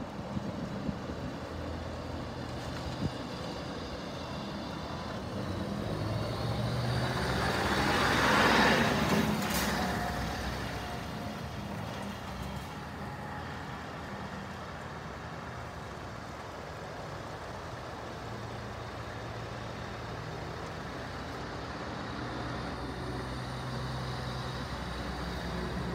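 Scania R520 tractor unit's V8 diesel engine running as the truck drives slowly around, growing louder to a peak about eight or nine seconds in as it passes close, then settling back to a steady low run.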